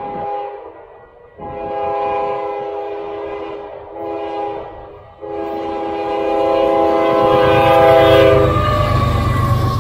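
Canadian Pacific GE ES44AC diesel locomotive sounding its multi-tone air horn for a level crossing: the end of one long blast, then a long blast, a short one and a final long one, the standard long-long-short-long crossing signal. Toward the end the low rumble of the locomotive's engine and wheels grows loud as it passes close by.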